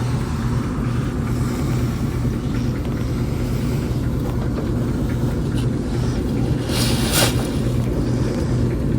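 Steady road and engine rumble of a car being driven, heard from inside the cabin. A brief rushing hiss comes about seven seconds in.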